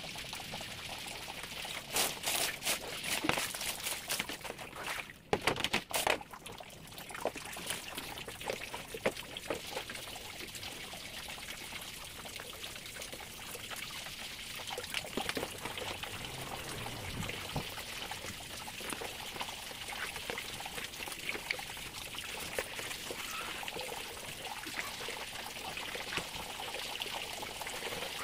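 Water pouring and trickling into a plastic cat litter tray being washed, with splashing as a sponge scrubs it in soapy water. A burst of knocks and clatter comes a couple of seconds in.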